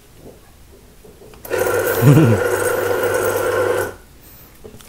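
Electric banknote counter's motor starting up about one and a half seconds in and running steadily with a hum and whirr for about two and a half seconds, then stopping abruptly. The machine is in working order.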